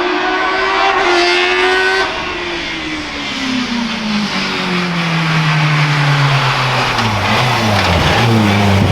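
Hill-climb race car engine running at high revs, then its note falls steadily in pitch over several seconds as the car passes. A second, lower engine note comes in near the end.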